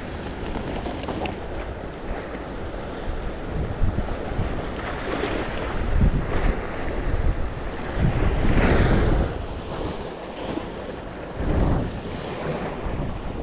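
Strong wind buffeting the microphone in gusts that swell several times, over the rush of sea waves.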